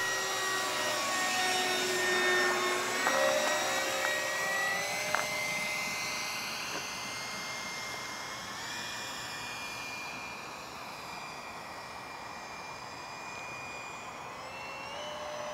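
Electric ducted fans of a radio-controlled XB-70 Valkyrie model jet in flight: a steady high whine whose pitch steps up and down with the throttle. It grows fainter past the middle and louder again near the end, with a sharp click about five seconds in.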